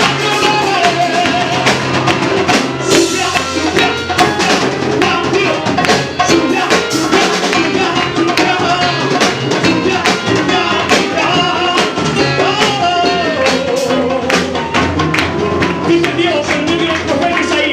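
Upbeat Latin-style worship song: singing over a steady drum beat and percussion.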